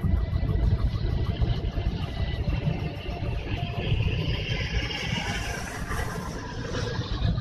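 Engine and road noise inside a car moving at highway speed, a heavy low rumble throughout. A hiss builds over the last few seconds as it pulls alongside another vehicle, then everything cuts off suddenly at the end.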